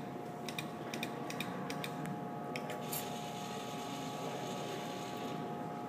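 Claw crane machine working: a quick, uneven run of clicks for about the first three seconds as the claw is moved, then a steady mechanical whir as the claw lowers into the plush toys.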